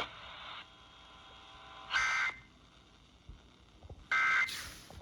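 Two short, harsh bursts of Emergency Alert System digital data tones (the SAME code, two warbling pitches), about two seconds apart; bursts this short are the end-of-message code that closes an alert. A brief burst of hiss follows the second one.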